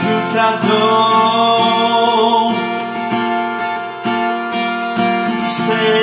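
Acoustic guitar strummed in a slow song, with a man singing long held notes over it.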